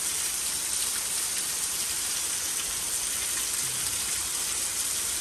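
Heavy rain falling steadily, with runoff pouring off the edge of a porch roof onto the grass below: an even, unbroken hiss of rain.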